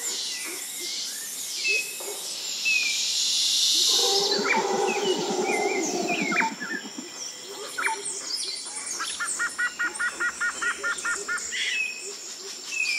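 Forest ambience of birds chirping and whistling over a steady high whine. A louder, harsh rasping call runs from about four to seven seconds in, and near the end comes a fast, even run of about a dozen chirps, roughly four or five a second.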